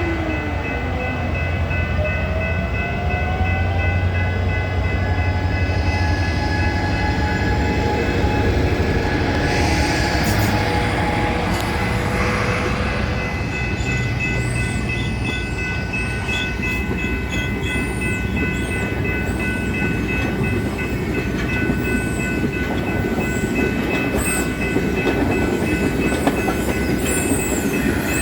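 Train rolling past: railcars rumbling and clattering over the rails, with steady high-pitched whining tones over the top.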